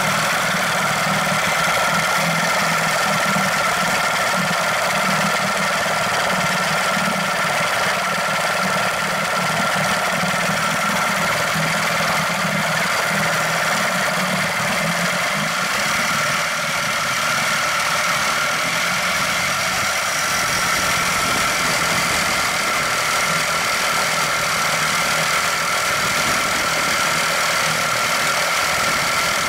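Yamaha/Mariner 6E9 40 HP two-cylinder two-stroke outboard running at a steady speed with its cowling off, its throttle stop bar opened three turns.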